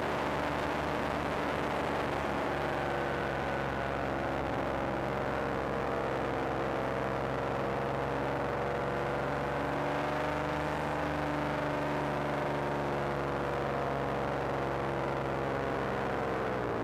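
Paramotor engine and propeller running steadily at cruise power in flight, with the pitch dropping near the end as the throttle is eased off.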